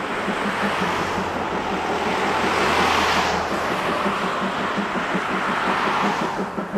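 C11 tank steam locomotive working toward the listener, its exhaust beating at a rapid, even rate under a broad rushing hiss of steam that swells twice.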